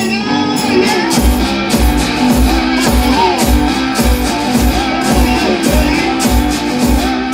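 Blues music on guitar, with a steady bass-drum beat coming in about a second in.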